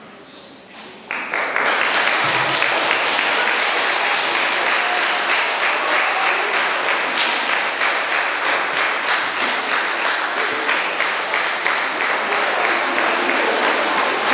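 An audience of mostly young children applauding: dense clapping that breaks out suddenly about a second in and then keeps going steadily.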